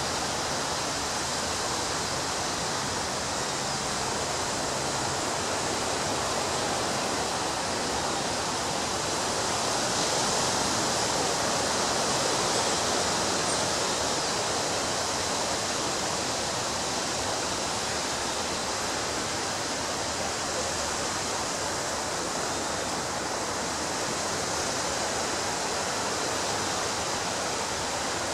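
Ocean waves breaking on a beach: a steady wash of surf noise that swells a little about ten seconds in.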